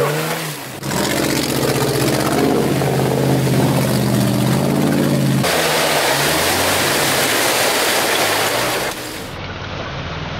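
Off-road Jeep Wrangler's engine revving hard under load in deep mud, holding a steady pitch for several seconds. Then comes a loud rushing noise as the tyres churn and spray mud.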